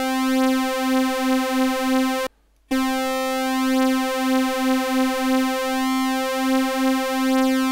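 Logic Pro ES2 software synthesizer holding one sawtooth note, with two slightly detuned oscillators beating against each other in a wavering, phasey pulse. The note stops for a moment about two seconds in, then sounds again.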